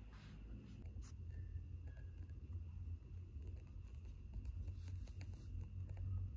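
Satin scrunchies rustling as they are handled and slid onto the metal hooks of a wire grid rack, with scattered light clicks.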